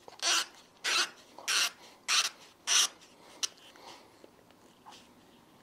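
Five rhythmic rubbing strokes, about one every 0.6 s, from hand work on the Vespa GTS300's old rear shock absorber mounting as the rubber bushing is worked off. A single sharp click follows about halfway through.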